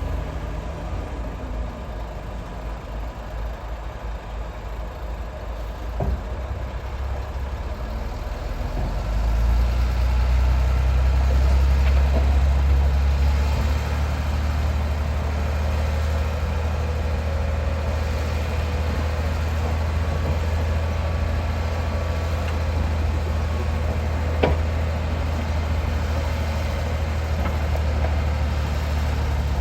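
A heavy vehicle's engine running steadily at a low pitch. It gets louder about nine seconds in and then holds, with a couple of short sharp knocks along the way.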